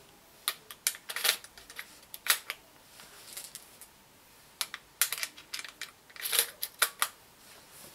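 Irregular sharp metallic clicks and clacks from the Umarex Legends Cowboy CO2 lever-action rifle's action being handled. The clicks come singly and in small clusters, the loudest about two seconds in.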